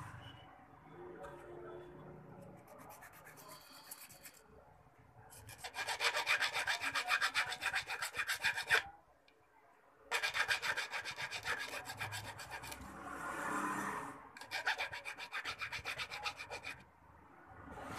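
Flat hand file rasping back and forth across a small metal jewellery piece held on a wooden bench pin, in quick even strokes of about four a second. The filing comes in runs broken by short pauses, after a quieter first few seconds of handling.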